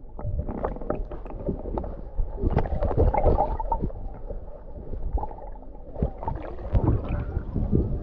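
Shallow seawater sloshing and splashing, with a dense run of small irregular splashes and knocks.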